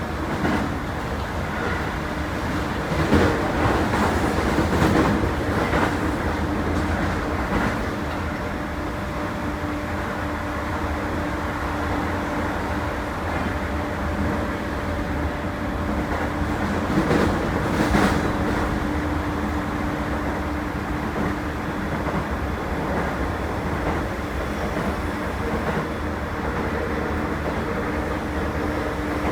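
Toei 10-300 series electric train running at speed, with rail rumble, a steady droning tone and a few louder clunks from the wheels and track.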